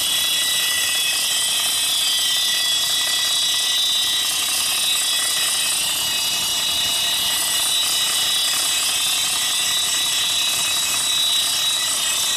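A Stewart & Stevenson M1078 LMTV's diesel engine running steadily, with a horrendous steady mechanical scraping and whine from the cooling fan touching its shroud, which was bent in during shipment.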